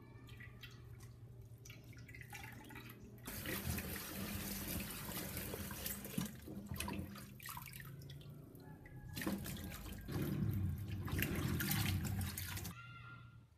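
Water running from a kitchen tap in two spells, starting about three seconds in and again after a short break, then shut off near the end. Light clicks and clatter come before it, over a steady low hum.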